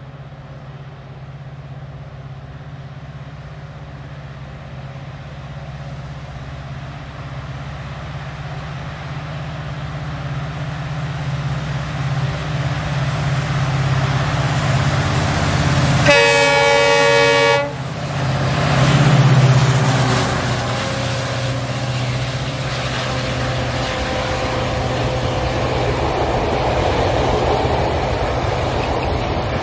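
Indian Railways EMD diesel locomotive approaching with a passenger train, its engine drone slowly growing louder. About sixteen seconds in it sounds one horn blast of about a second and a half, then passes close by, and the coaches follow with a steady rolling rumble.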